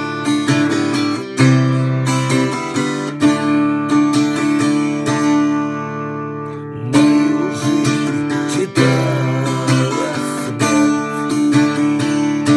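Instrumental passage of a song: acoustic guitar strumming chords.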